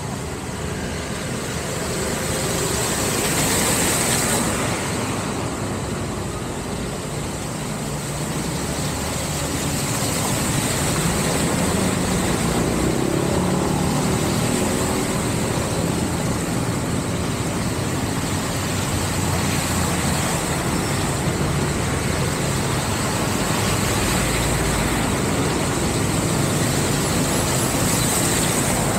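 Cars and a motorbike driving through shallow floodwater on a street, their tyres swishing and splashing through the water over steady engine noise, swelling as each vehicle passes.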